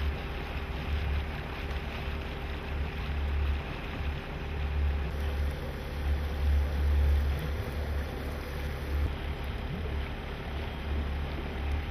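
Small motorboat's engine running steadily while cruising, with wind gusting on the microphone.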